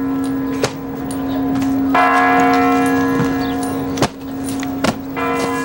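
Large clock-tower bells of the Kremlin ringing, with a fresh strike about two seconds in and another near the end, their tones hanging on between strikes. A few sharp heel strikes from the goose-stepping honour guard's boots sound over the bells.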